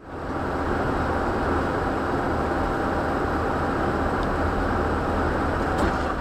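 Steady rumble of road and engine noise from a moving vehicle, starting abruptly and holding level, with no impact heard.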